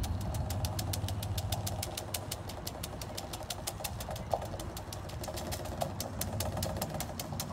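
Flamenco zapateado footwork: a dancer's nailed shoes striking the floor in a rapid, even run of heel and toe beats, about seven a second, over a low steady hum.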